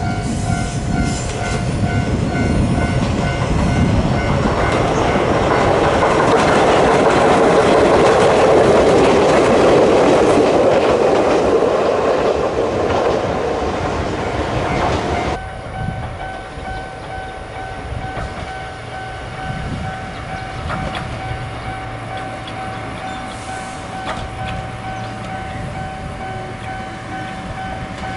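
Ichibata Electric Railway electric train approaching and running past on the track, the rush and clatter of its wheels on the rails swelling to a peak about a third of the way in and then fading, with a steady high tone underneath. About halfway through the sound cuts abruptly to a quieter scene of an orange electric train at a small station, with a steady tone and a low electrical hum.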